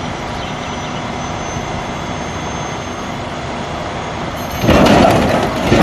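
Heavy tow trucks recovering an overturned semi: a steady diesel rumble with a thin high whine, then a sudden, much louder rush of noise about four and a half seconds in that lasts about a second.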